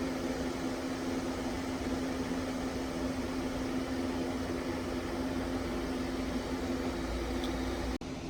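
Steady mechanical hum with a constant low tone over an even hiss, dropping out for an instant near the end.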